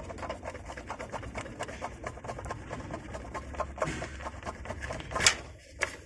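Porsche Cayenne Turbo water pump pulley spun by hand with the drive belt off, its bearing giving a fast, rough rattling grind over a steady low hum, with one sharp click about five seconds in. The noisy water pump bearing is the suspected cause of the engine's constant whine.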